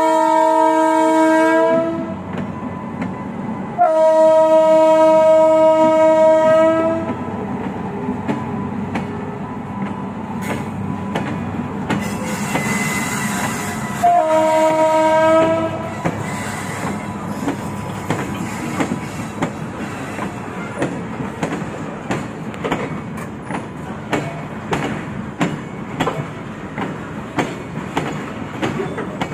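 Electric freight locomotive's horn sounding three times: a blast that ends about two seconds in, a longer one from about four to seven seconds, and a shorter one around fourteen seconds. Between and after the blasts, the loaded freight wagons rumble past with the rhythmic clickety-clack of their wheels over the rail joints.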